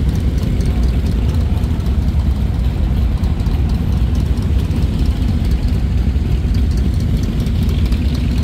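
A group of Harley-Davidson motorcycles idling together, a steady low engine sound with no revving.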